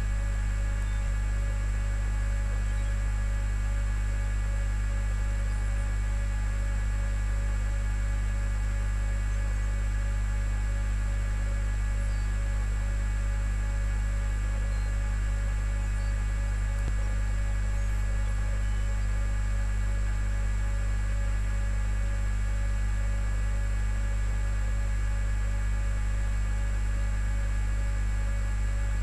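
Steady electrical mains hum: a strong low drone with several fixed higher tones above it. It does not change throughout.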